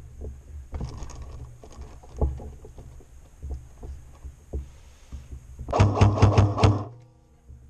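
Low rumbling and scattered knocks from movement on the body-worn camera, then near the end a loud burst of about nine rapid, evenly spaced shots lasting about a second, an airsoft electric gun firing on full auto.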